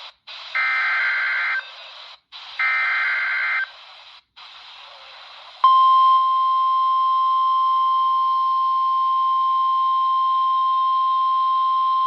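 NOAA Weather Radio emergency alert heard through a RadioShack 12-254 weather radio: the last two of the three SAME header data bursts, each a warbling digital squawk about a second long with static hiss between. About six seconds in, the steady single-pitch 1050 Hz warning alarm tone starts and holds.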